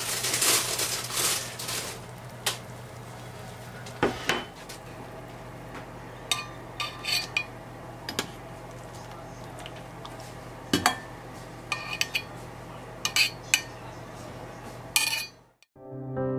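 A ladle scraping and then clinking sharply, about a dozen separate times, against a ceramic clay pot of soup and a stainless soup jar as the soup is ladled out, over a steady low hum. Piano music starts right at the end.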